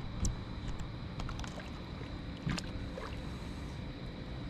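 Steady low rumble of river water and wind around a fishing boat, with a few light knocks and clicks: one near the start, one a little past the middle, one at the end.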